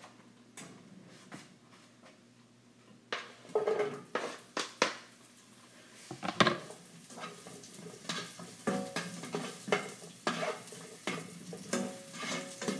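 Spatula knocking and scraping against a frying pan, with dishes clinking, as onions start to sauté. A faint sizzle runs under the knocks. The first few seconds are quiet before the clatter begins.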